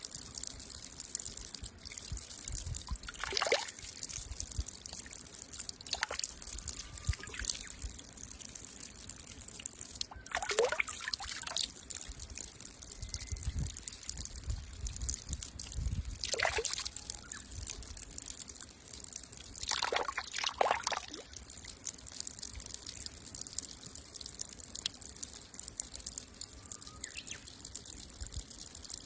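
Water trickling steadily from the open end of a small metal pipe onto stone. A handful of brief louder splashes break in as a baby monkey puts its mouth and hands into the stream to drink.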